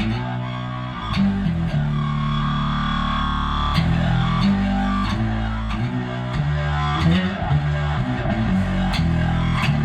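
Electric bass played through a Digitech X-Series Bass Synth Wah pedal set to an "ow" envelope-filter sound: a run of held synth-bass notes, each with a vowel-like filter sweep.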